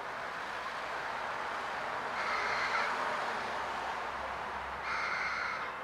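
Steady outdoor background noise, with two calls from a bird, each under a second long, about two and five seconds in.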